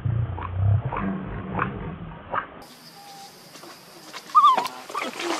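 Pig-tailed macaques: a low grunt-like rumble with a few soft clicks over the first half, then a short, loud, wavering high squeal that drops in pitch, a young macaque's call, about four seconds in.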